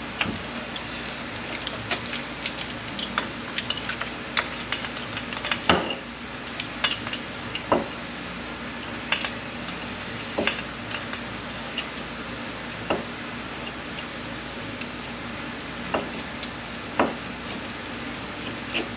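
Scattered metallic clicks and clinks of hand tools and small parts being handled on an automatic transmission under disassembly. The loudest clink comes about six seconds in, and the clinking thins out in the second half over a steady low hum.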